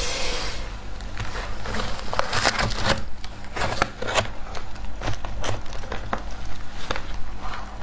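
Mouthfuls of matcha shaved ice being chewed, a quick irregular run of crisp crunches.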